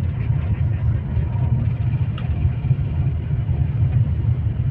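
Steady low rumble of a moving vehicle heard from inside, with a short sharp click about two seconds in.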